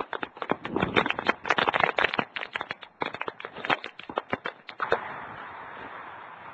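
Rapid, irregular clattering knocks for about five seconds, giving way to a steady rushing noise.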